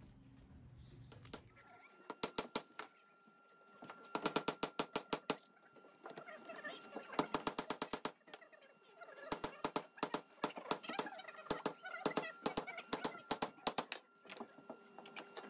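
Bursts of rapid light hammer taps, about eight a second, on bent and clamped stem laminations, over a faint steady hum.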